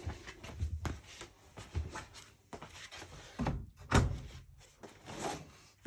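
Irregular handling noises: knocks, clicks and rustling, with a sharp knock about four seconds in.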